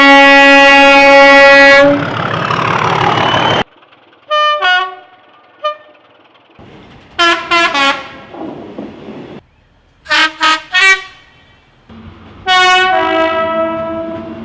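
Train horns sounding in a string of separate recordings spliced together. A long steady blast opens, followed by a falling rush of a passing train. Then come short toots, three quick blasts, a cluster of short blasts and a long blast that steps down in pitch near the end.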